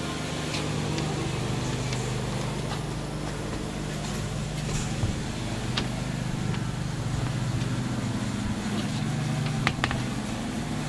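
A steady low mechanical hum, like a motor or engine running, with a few sharp clicks, one about six seconds in and two close together near the end.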